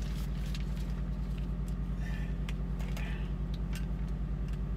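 Steady, low, pulsing hum of a semi truck's diesel engine idling, with light clicks and rustles as plastic shower-curtain rings are hooked onto a rod.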